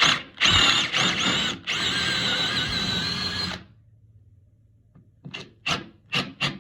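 Power drill boring into soft pine with a wavering whine, in two runs: a short one and then a steady one of about two seconds that stops about three and a half seconds in. It is enlarging a stripped hinge-screw hole to take a glued wooden dowel. Near the end come short scraping strokes, about three a second.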